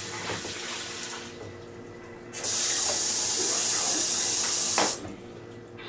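Water poured from a measuring cup into a pan of dry rice, then a kitchen faucet running steadily into the cup for about two and a half seconds before being shut off abruptly near the end.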